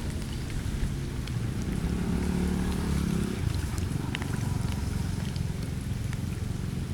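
Floodwater draining with a steady low rush, with a few small ticks and drips through it.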